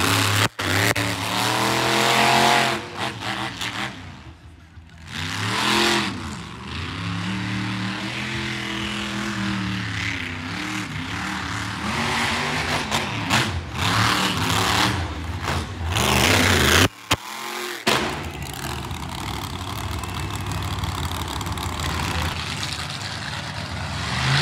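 Monster truck engine running hard through a freestyle run, its pitch repeatedly rising and falling as the throttle is worked. The sound drops out abruptly for about a second near two-thirds of the way through, then picks up again.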